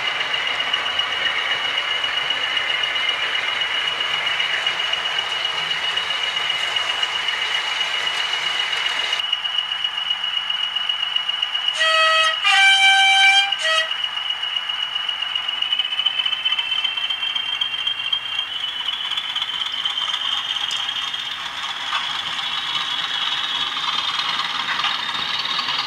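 OO gauge model trains running past: a steady high motor whine over the rattle of wheels on the track. About twelve seconds in, a two-tone diesel horn sounds from a sound-fitted model locomotive, low-high-low, and near the end the whine rises in pitch.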